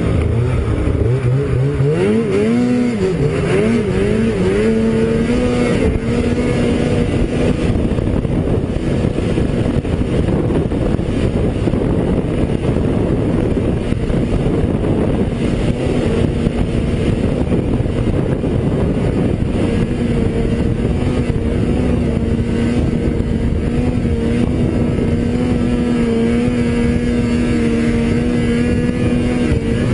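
Snowmobile engine running while riding. Its pitch rises and falls a few times in the first four seconds, then holds steady at a constant speed, with a rough rushing noise underneath.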